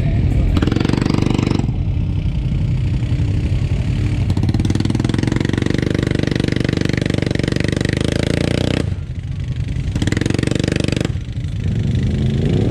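Side-by-side UTV engine running hard under steady throttle. Near the end it eases off twice, briefly, and revs back up each time.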